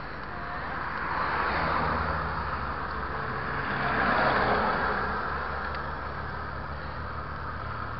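Two cars overtaking on a wet road: the hiss of their tyres on the wet asphalt swells and fades twice, about a second and a half in and again about four seconds in, over a steady low rumble.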